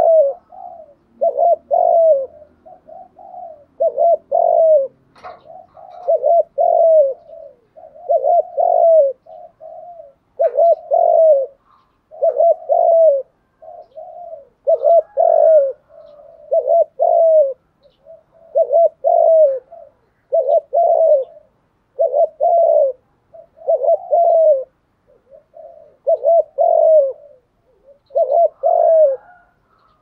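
Spotted dove cooing: a repeated coo phrase, roughly one every two seconds, with softer notes between the loud ones. This is the kind of call used as a decoy call (kích bổi) to stir other spotted doves.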